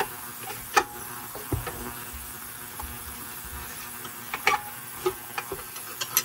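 Scattered clicks and knocks of metal parts and hand tools being handled while a part is worked loose on a small-engine saw, over a faint steady buzz.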